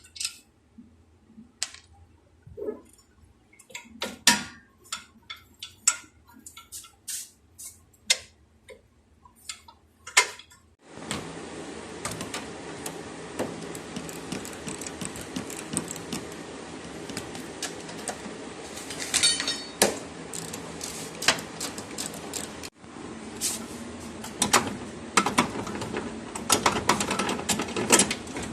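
Metal hand tools clicking and clinking against car suspension parts, a scattered run of sharp clicks. About eleven seconds in, a steady background hiss comes up under the clicks.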